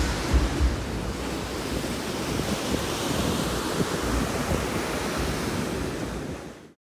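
Ocean surf washing on a beach, with wind buffeting the microphone in low gusts, strongest in the first second. The sound fades out just before the end.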